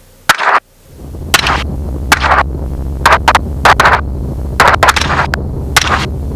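Rifle shots fired from a helicopter, about a dozen loud sharp cracks at an irregular pace, some in quick pairs, over the helicopter's steady low drone, which comes in about a second in.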